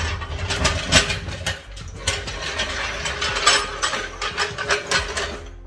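Steel 3-ton floor jack being moved into place on a concrete floor, its casters and handle giving a dense, irregular run of metal clicks and clanks.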